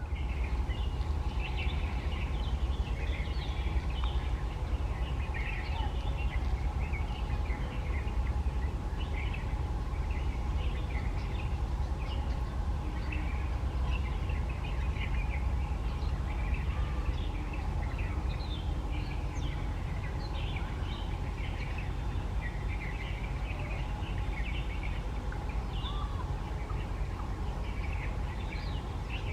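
Rose-ringed parakeets calling, many short shrill calls overlapping throughout, over a steady low rumble.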